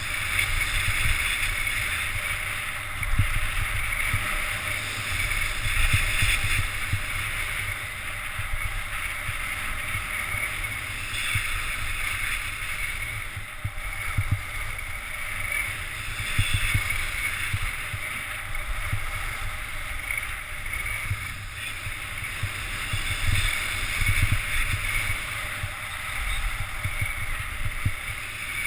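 Skis running over packed snow, a steady hiss that swells and fades every few seconds, with wind buffeting the camera's microphone as a low rumble of small thumps.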